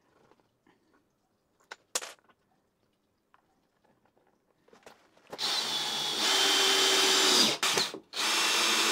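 Power drill with a Phillips bit driving screws into wood. A short knock comes about two seconds in, then the motor runs twice, each run about two seconds long, with a brief stop between.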